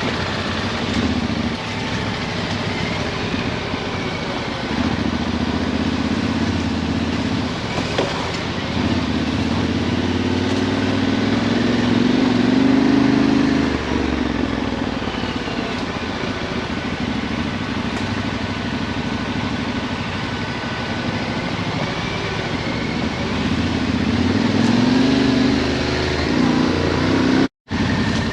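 Yamaha Ténéré 700's parallel-twin engine riding off-road, its pitch rising and falling with the throttle. The sound cuts out for a moment near the end.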